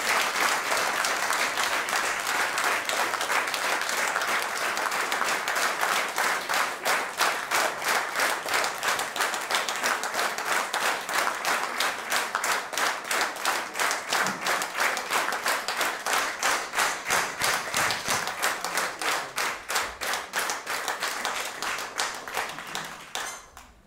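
Audience applauding an award presentation in a hall. The clapping starts as a dense, even applause, settles after a few seconds into steady rhythmic clapping in unison, and dies away near the end.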